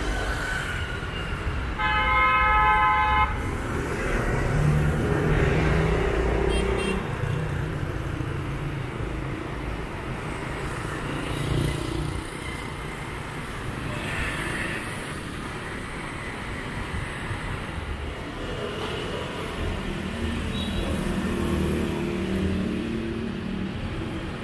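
Street traffic with motorbikes and cars passing, and a vehicle horn honking once for just over a second about two seconds in; a shorter, fainter beep follows a few seconds later.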